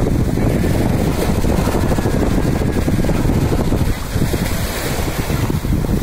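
Wind buffeting the microphone in a steady low rumble, over small waves washing in at the water's edge.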